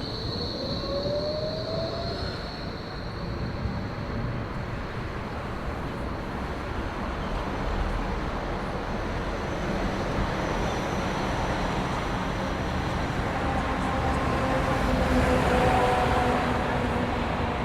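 Train running on rails: a steady rumble with a whine rising in pitch in the first two seconds, and several steady tones joining about thirteen seconds in.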